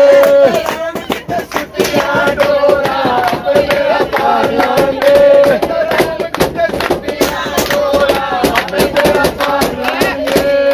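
Pilgrims singing a Hindu devotional song (bhajan) together, with long held sung notes and steady rhythmic hand-clapping to the beat.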